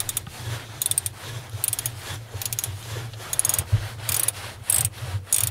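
Ratchet wrench with a 14 mm socket being worked back and forth on the engine's idler bearing bolt, giving short bursts of rapid clicks a little more than once a second.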